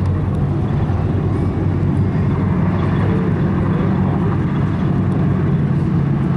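Race car engine running at a steady speed, a continuous low drone with no revving.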